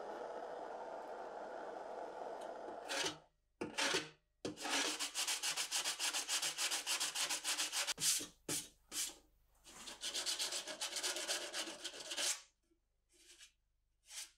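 A gas blowtorch flame hisses steadily for about three seconds. Then comes quick back-and-forth rubbing on the sheet-metal lantern body, several strokes a second in runs with short pauses, as the soldered repair is sanded down by hand, dying away to a few light strokes near the end.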